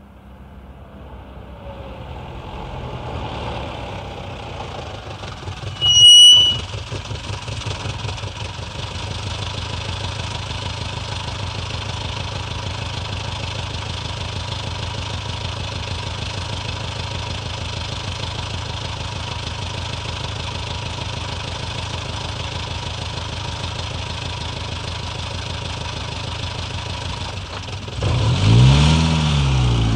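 A badly worn 1962 Sunbeam Rapier's four-cylinder engine approaches and the car pulls up, its brakes giving a short, high squeal about six seconds in. The engine then ticks over steadily at idle, and revs up near the end as the car moves off.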